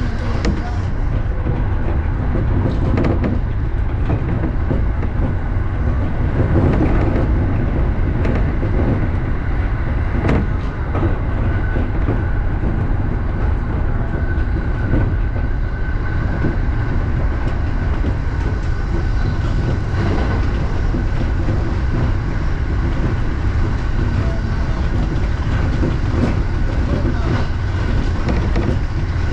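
Electric commuter train running at speed, heard from inside the front car: a steady low rumble with occasional clatter from the wheels on the rails. A faint steady high whine runs from about a third of the way in to about two-thirds.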